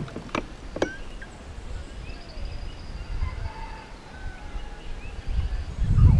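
Faint short bird chirps over low rumbling on the microphone, the rumble growing loud near the end. A few sharp clicks in the first second.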